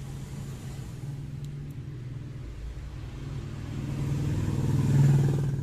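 A motor vehicle engine running with a low, steady hum, growing louder to a peak near the end and then starting to fade.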